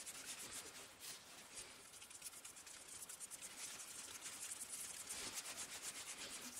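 Small paintbrush's bristles brushing wet lacquer onto a wooden board: a faint, quick back-and-forth swishing.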